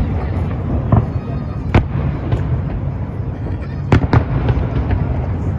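Fireworks exploding overhead: several sharp bangs, the strongest about two seconds in and a quick pair near four seconds, over a steady background of crowd noise.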